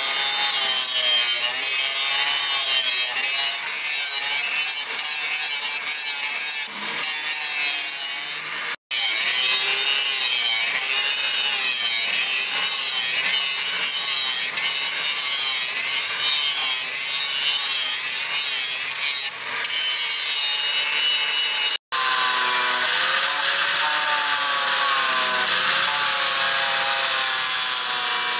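Handheld angle grinder with an abrasive disc grinding a steel knife blade, running loud and steady, its whine wavering in pitch as the load changes. The sound cuts out for an instant twice.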